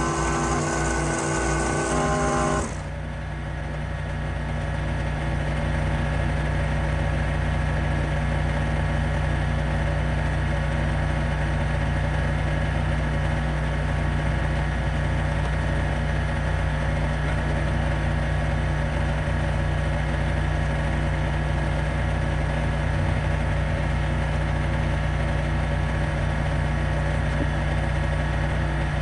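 An engine running steadily at a constant speed, a low even drone. For the first couple of seconds a higher whine with a hiss lies over it, and it cuts off abruptly.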